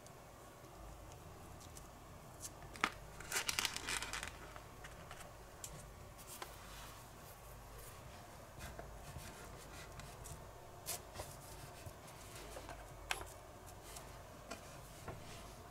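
Close handling sounds of gummy candy being cut: light clicks and taps of a pink plastic toy knife and wooden chopsticks on a plastic cutting board as a soft gummy is sliced. About three seconds in there is a brief crinkly rustle, the loudest sound.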